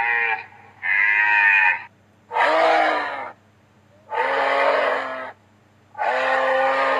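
A deer calling over and over, about one call every second and a half to two seconds, each call lasting about a second. The first calls are higher and clearer; from about two seconds in they turn lower and rougher.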